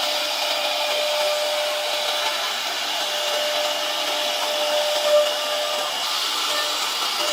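CNC wood router spindle running steadily, a whining hiss with a thin steady tone that fades about six seconds in.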